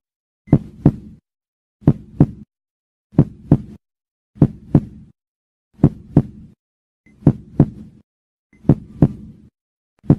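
Slow heartbeat sound effect: a double lub-dub thump repeating about every second and a half, with silence between the beats.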